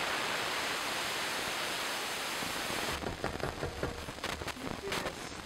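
A steady hiss for about three seconds that cuts off abruptly, followed by a wooden spoon stirring cherries and strawberries in a pot, with light knocks and clicks.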